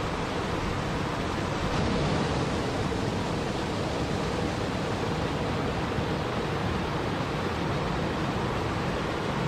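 Small cascades of water rushing and splashing over boulders into a river, a steady, even sound of moving water.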